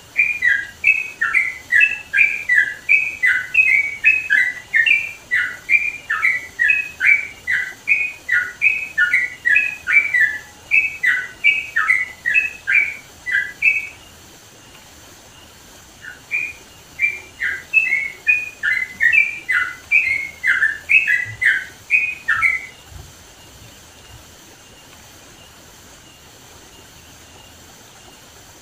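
Yellow-vented bulbul (trucukan) singing a fast run of short, sharply falling whistled notes, about two a second. The song breaks off briefly about halfway through, resumes, and stops about three-quarters of the way through.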